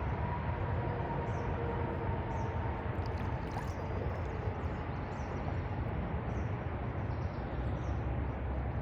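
Steady outdoor noise: a low rumble with a hiss over it, and faint short high chirps now and then.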